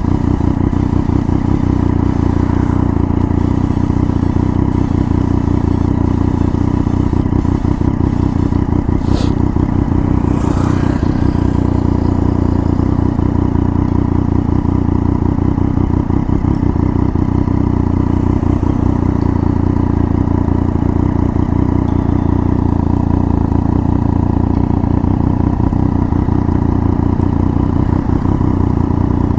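Triumph Daytona 675's inline-three engine running steadily as the bike is ridden, with a constant low rumble and no change in pace. There is one brief sharp click about nine seconds in.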